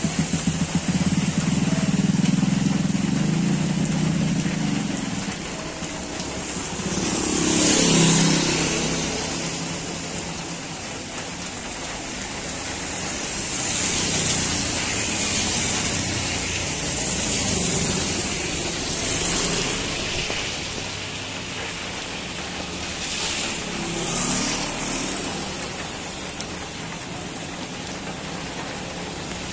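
Heavy rain falling on a flooded street, a steady hiss, with vehicles passing through the standing water. An engine hums for the first few seconds, then tyres swish through the water, loudest about eight seconds in, with more passes around fourteen to nineteen seconds and again a little later.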